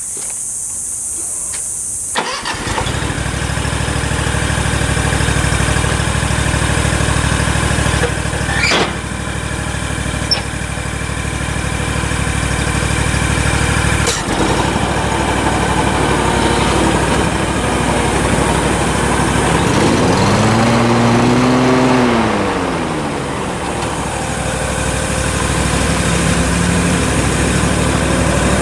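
A stand-on mower's engine starts about two seconds in and then runs steadily. Around twenty seconds in, a pitch rises and then falls once.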